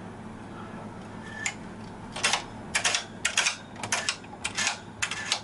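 Metal needles of a Silver Reed SK160 mid-gauge knitting machine being pushed out along the needle bed by hand to set up a 50-stitch cast-on, a run of light metallic clicks. The clicks start about a second and a half in and come in small clusters about every half second.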